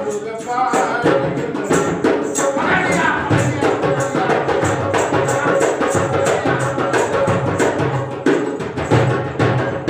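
Lively dance music with a fast, steady percussion beat and a melody over it.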